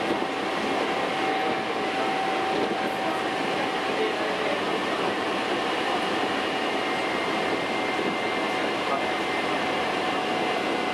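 Hankyu 'Kyo-train' electric train running steadily at speed, heard from inside the car: an even rumble of wheels on rail with a thin steady whine above it. Fainter higher tones join about halfway through.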